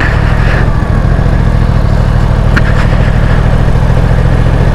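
Yamaha R1 sportbike's crossplane inline-four engine idling steadily at a standstill, with one light click about two and a half seconds in.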